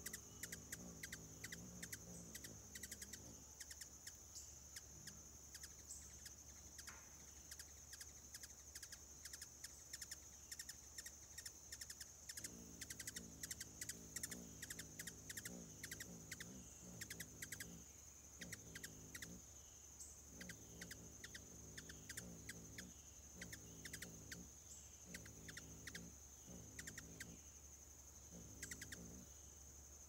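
Faint outdoor ambience: a steady high-pitched drone with many quick ticks over it. A low hum drops out about three seconds in and returns about twelve seconds in.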